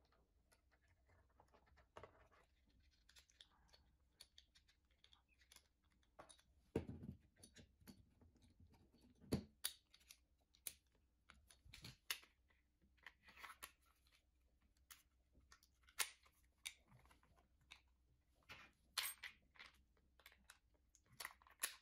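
Faint handling clicks and scrapes of an ASG CZ P-09 airsoft pistol being reassembled by hand, as the recoil spring and guide rod go into the slide and the slide is fitted back onto the frame. The clicks come irregularly, with a few sharper ones among them.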